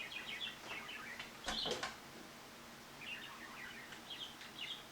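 Pet budgerigars chattering: a run of quick, short chirps and warbling notes. A couple of sharp taps come about a second and a half in.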